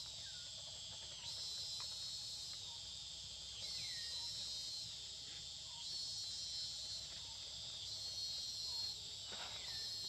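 A dense, high-pitched chorus of forest insects, running without a break and swelling louder in waves every two seconds or so. A few faint, short falling calls sound over it.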